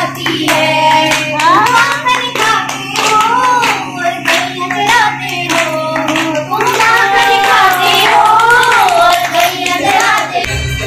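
A group of women singing a devotional bhajan together, clapping their hands in a steady rhythm.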